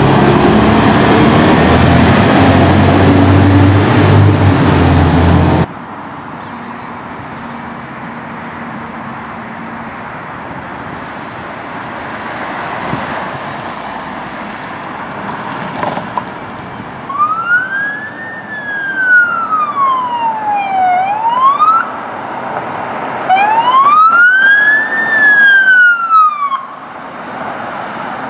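A fire engine's diesel engine runs loud and heavy as the truck pulls away, cutting off abruptly about six seconds in to quieter passing traffic. In the second half, an emergency vehicle's electronic siren wails in two slow rising-and-falling sweeps.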